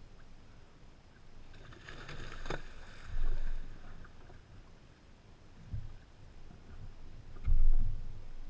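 Water slapping against the hull of a flats skiff, heard as low, heavy thuds three times, the last the loudest. There is a brief rasping sound about two seconds in.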